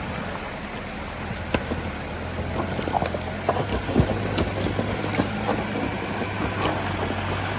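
Toyota Hilux engine running steadily under load as the truck fords a river, with water sloshing around it and scattered sharp knocks, most of them in the middle seconds.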